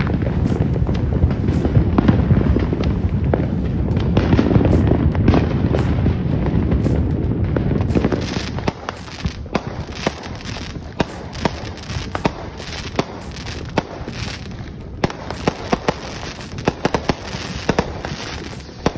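Consumer fireworks going off all around: a dense low rumble full of bangs for about the first eight seconds, then a lower level with many scattered sharp pops and crackles.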